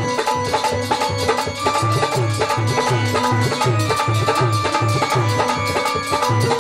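Instrumental devotional accompaniment: a hand drum keeps a fast, even beat of about four strokes a second, its bass strokes bending in pitch, under steady held melody notes.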